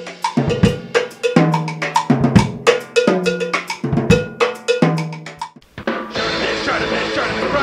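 Intro music: a drum-kit beat with cowbell and rimshot-like hits over short pitched bass notes, switching about six seconds in to a denser, full-band rock track.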